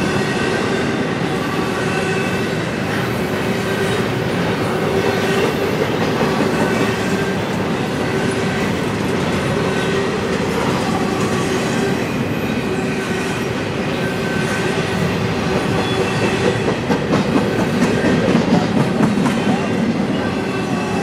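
Double-stack intermodal container train rolling past: a steady rumble of steel wheels on the rails with some clickety-clack, and thin ringing tones coming and going over it.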